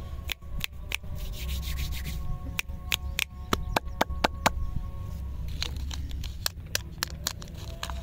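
Fingertips rubbing together close to the microphone: a soft rubbing hiss, then a run of sharp clicks at about four a second, and more scattered clicks later. Faint background music sits underneath.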